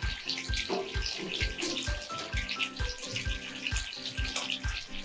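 Slices of boiled pork belly sizzling in hot oil in a frying pan, browning, over background music with a steady beat.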